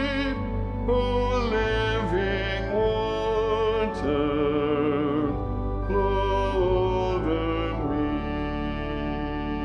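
Music: a hymn arrangement in D with a soprano melody moving between held notes with vibrato, over steady sustained accompaniment.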